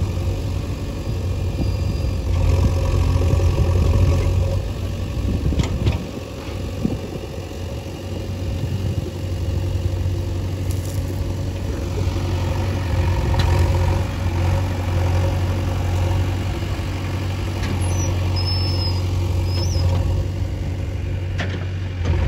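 Diesel engine of site machinery running steadily with a low, even drone.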